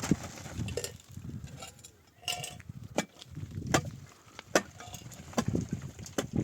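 Irregular sharp clicks and knocks over duller low thumps, with a brief higher-pitched sound a little over two seconds in.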